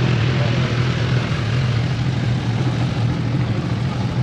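Motorcycle engines idling, a steady low drone with no revving.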